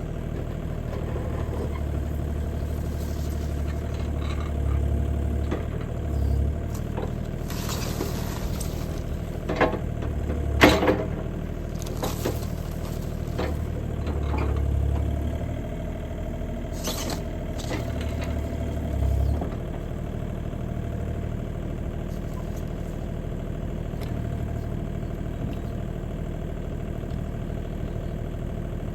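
Bobcat E35 mini excavator's diesel engine running steadily, swelling several times as the hydraulics take load. In the middle come a run of crunches and sharp knocks, the loudest about ten seconds in, as the bucket and thumb crush a cardboard box.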